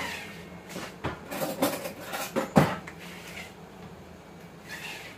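Clatter of cookware and utensils being handled: a run of knocks and clinks in the first three seconds, the loudest about two and a half seconds in.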